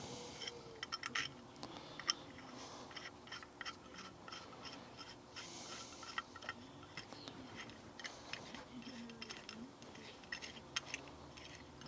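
Scattered light clicks and taps of small metal parts being handled and fitted by hand on a machined aluminium wheel-head casting.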